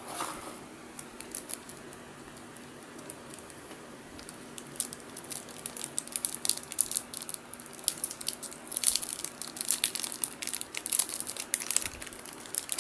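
Plastic wrapping crinkling as it is handled and pulled off a new speedcube, a few scattered crackles at first, then busier and louder from about halfway through.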